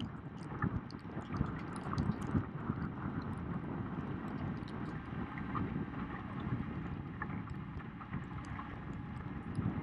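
Wind rumbling on the microphone of a camera riding low on a boat on the river, with water noise and scattered faint ticks and splashes.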